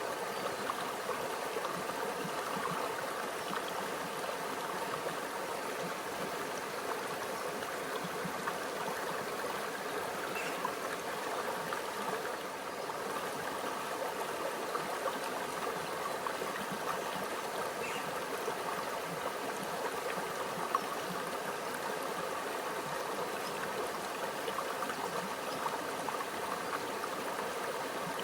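Small stream flowing steadily, a gentle continuous babble and trickle of water over rocks.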